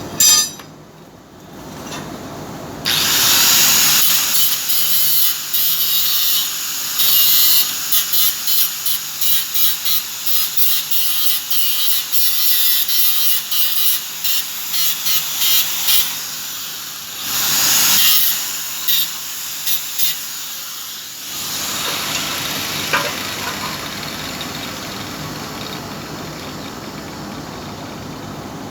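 A power tool running hard in many short pulses, with a longer run near the end, then stopping about two-thirds of the way through.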